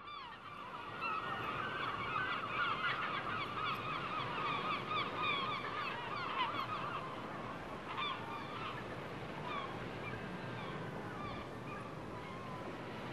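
A flock of birds calling: many short overlapping calls, thickest in the first half and thinning out towards the end.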